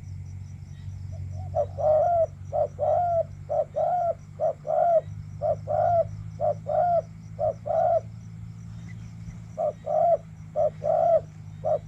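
Spotted dove cooing: a long series of short, repeated coos, about two a second, with a couple of brief pauses, over a steady low hum.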